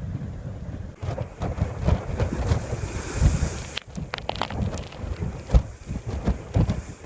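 Gusty wind buffeting the microphone, an uneven low rumble that rises and falls in rapid gusts and drops out briefly near the middle.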